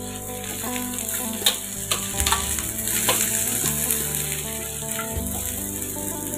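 Sliced onions, lemongrass, ginger and garlic sizzling in hot oil in a wok, the sautéing of the aromatics. A metal spatula stirs them, scraping the pan with several sharp clicks against the wok.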